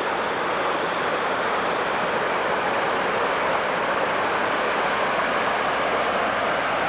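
Steady rush of fast-flowing water, a stream or river running high.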